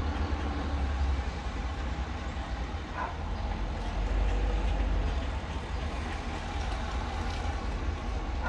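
Steady low rumble of background noise with a faint hum, and no distinct event.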